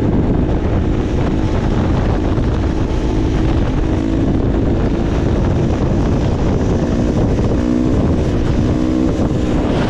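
Suzuki DR-Z400E's single-cylinder four-stroke engine running steadily at road cruising speed, with wind buffeting the helmet microphone.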